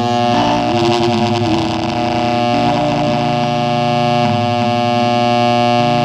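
Music played through an LM1875 chip amplifier into a speaker, smothered in loud harsh noise and distortion: the amplifier's power supply has only 10 µF filter capacitors, too little filtering, which makes it sound worse.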